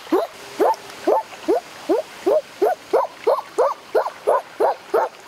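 A boy's voice making short, repeated 'hoo' calls through rounded lips, about three a second, each one sweeping up and then back down in pitch.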